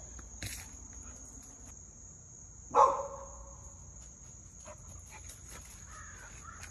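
A mini labradoodle puppy barks once, about three seconds in, over the steady high chirring of insects.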